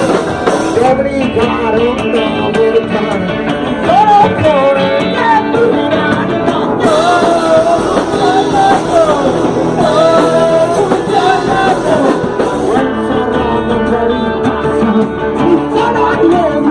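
A rock band rehearsing, playing loud and steady, with a voice singing over guitar and the rest of the band.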